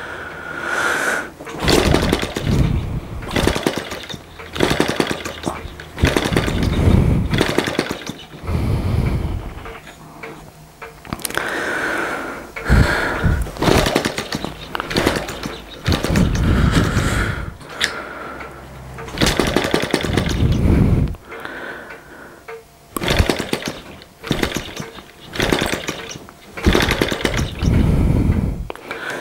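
Small split-cycle two-stroke model engine flicked over by hand again and again, firing in short bursts of a second or two that die away each time, about ten tries in all: it will not keep running yet.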